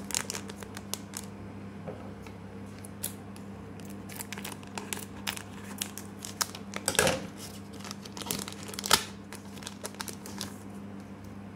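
Foil wrapper of a Pokémon trading-card booster pack crinkling and tearing as it is handled and torn open, with two louder crackles about seven and nine seconds in. A faint steady low hum runs underneath.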